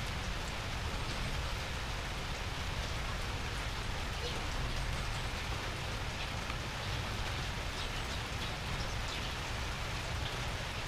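Steady hiss of rain falling on wet concrete and surfaces, with a few faint ticks.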